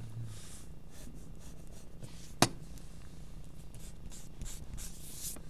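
Graphite pencil strokes scratching across drawing paper, with one sharp click about two and a half seconds in.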